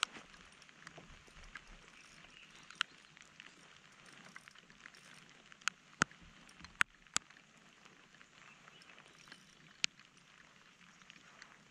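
Light rain falling on a lake: a faint steady hiss with scattered sharp ticks of drops landing nearby at irregular moments.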